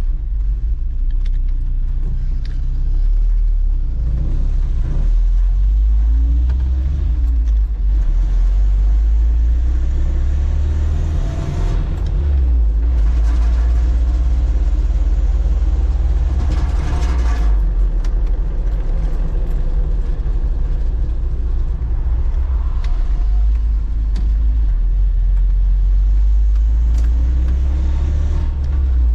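1985 Toyota 4Runner's four-cylinder engine and drivetrain heard from inside the cab while driving, with a steady low rumble. The engine pitch rises and falls several times as the manual gearbox is run up and shifted through the gears.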